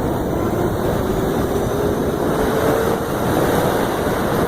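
Steady wind rush over the microphone while riding a 2015 Zero SR electric motorcycle, with the motor's faint whine rising slowly in pitch over the first three seconds as it speeds up.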